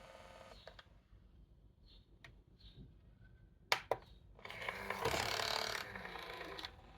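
SureFeed MPF001 pet feeder's motorised lid mechanism: a motor whine stops about half a second in, a few light clicks follow, then a sharp snap in the middle and about two seconds of rattling, grinding mechanical noise as the lid moves.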